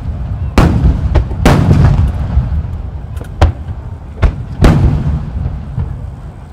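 30 cm shakudama aerial firework shells bursting in quick succession. Three loud booms about half a second, a second and a half, and nearly five seconds in, with smaller reports between them, each followed by a rolling rumble.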